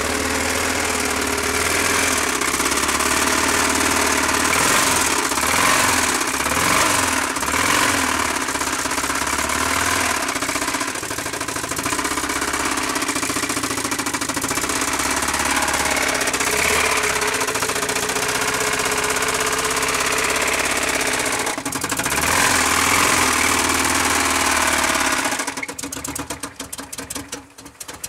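Toyota 22R inline-four engine running with a thrown connecting rod, knocking and clattering hard with the rod broken out through the side of the block. Near the end the running sound drops off suddenly, leaving rapid rattling clicks.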